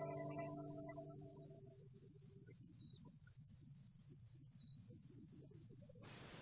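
A small ornate handheld whistle blown in one long, steady, very high note that cuts off abruptly about six seconds in. Low background music fades out under it in the first second or so.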